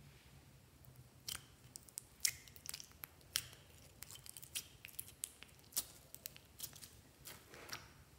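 Clear, sticky slime being scraped out of a ceramic dish and dropping into a glass bowl, making a run of irregular sharp clicks and pops as it peels away.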